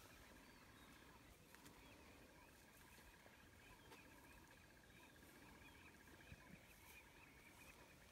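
Near silence: faint outdoor bush ambience with a steady, fast high trill and small chirps throughout.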